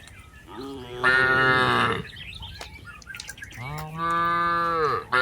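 Cattle mooing: two long calls, each about a second and a half, the second lower and falling at its end. Faint bird chirps sound between them.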